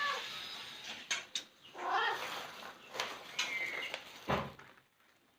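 A domestic cat meowing: a few short meows, one at the start, one about two seconds in and a higher one about three and a half seconds in, with several sharp clicks in between.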